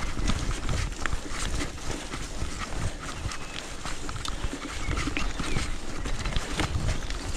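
B'Twin 520 mountain bike riding a wet grassy woodland trail: tyres rolling over soft, bumpy ground with the bike rattling and knocking, many short clicks over a steady low rumble.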